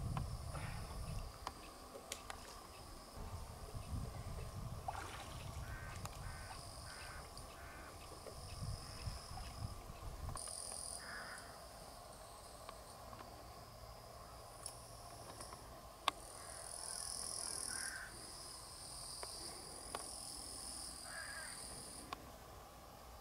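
Outdoor riverside ambience: a bird calls in a short series of about four notes around six seconds in, then singly a few more times, over a high steady buzzing that comes and goes. A low rumble runs through the first half, and one sharp click comes about sixteen seconds in.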